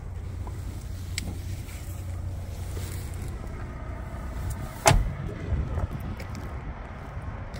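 The driver's door of a Kenworth T680 semi-truck cab is shut with a single loud slam about five seconds in, over a steady low rumble.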